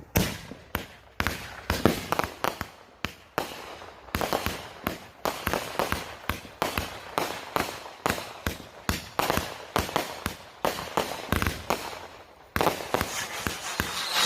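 A 500-gram TNT 'Wowza' firework cake firing shot after shot, sharp bangs about two to three a second. Near the end the separate bangs give way to a dense, continuous crackling.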